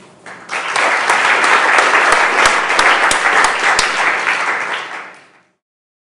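Audience applauding, starting about half a second in, tailing off near the end and then cutting off abruptly.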